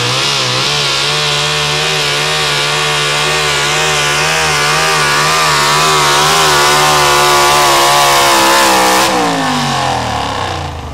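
Pro Stock four-wheel-drive pulling truck's engine running flat out under load while dragging the sled, its pitch wavering up and down. About nine seconds in the throttle shuts and the engine winds down as the pull ends.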